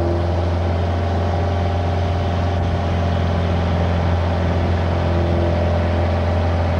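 Motorboat engine running steadily at speed while towing water skiers, heard close from aboard the boat, with the rush of water along the hull and wake.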